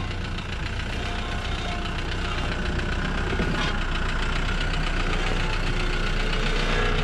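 Off-road 4x4's engine running steadily, growing a little louder through the second half.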